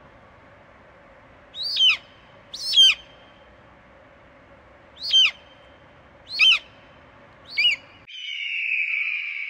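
Eagle calling: five short, high screams, each falling in pitch, in two groups about a second apart. Near the end a steady high hiss takes over.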